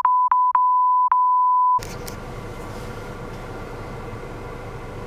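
Phone call audio through the car's speakers: a steady high beep tone, broken by a few clicks, cuts off about two seconds in, leaving the hiss and hum of an open phone line while the call tries to connect to a number that turns out to be unreachable.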